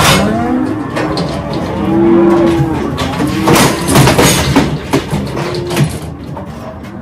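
Many cattle bawling at once, the calls overlapping, from calves separated from their mothers overnight and the cows kept off them. About halfway through, sharp metallic clanks as the steel calf cradle is worked.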